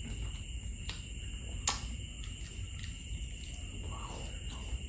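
A man chewing a bite of grilled pork barbecue: soft mouth and lip clicks, the sharpest about a second and a half in, over a steady faint high-pitched whine.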